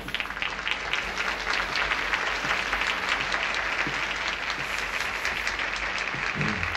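Live concert audience applauding and cheering, a dense steady patter of clapping. A few pitched low notes of music come in near the end.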